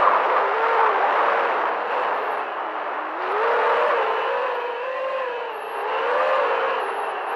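FPV racing quadcopter's motors and propellers whining, the pitch rising and falling with the throttle, over a steady rush of prop wash and wind, heard from the camera on board the quad.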